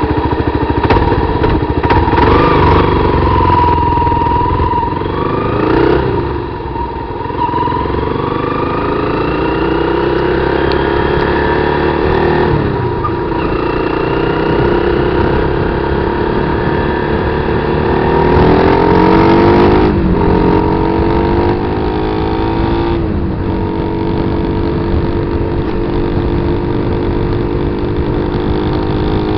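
Kawasaki KLR250 single-cylinder four-stroke dirt bike engine pulling under load, its pitch climbing steadily and then dropping sharply as it shifts, about four times.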